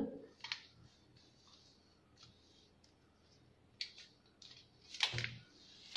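A few brief, faint clicks and rustles of craft materials being handled on a tabletop, a plastic packet of modelling clay shifted and a plastic glue bottle held, with quiet room tone between; the strongest comes just after five seconds.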